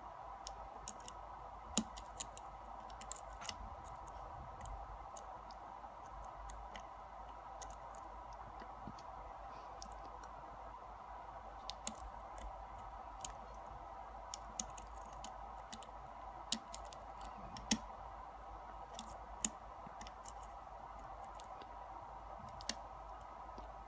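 Lock pick and tension wrench working the pin tumblers of a brass Yale lock cylinder: scattered small metallic clicks, a few louder than the rest, as the pins are lifted and set one at a time. A faint steady hum lies under them.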